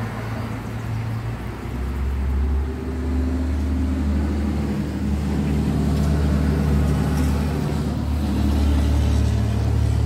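Low, steady drone of a motor vehicle's engine running, dropping in pitch about a second and a half in.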